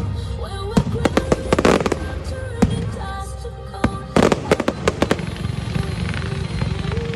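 Fireworks going off: clusters of sharp bangs and crackles, thickest about a second in and again about four seconds in, with music playing underneath.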